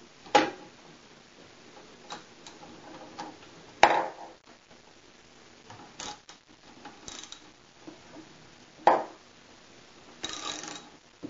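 Socket wrenches working the steel bolts and nuts of a clamp-on collar as they are tightened: a few sharp metallic clacks several seconds apart, with a short rattle near the end.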